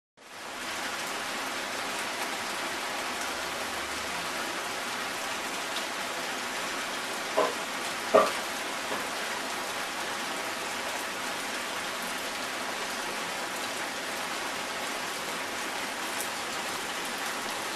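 Steady rain falling, swelling up over the first half-second. Two short, sharp sounds stand out above it a little past seven and eight seconds in; the second is the louder.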